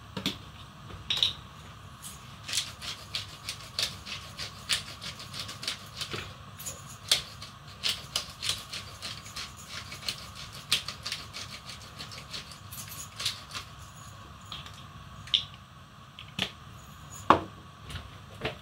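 Hand-twisted spice grinder grinding: a run of crisp, irregular clicks, a few a second, with a louder knock near the end as a grinder is set down on the worktop.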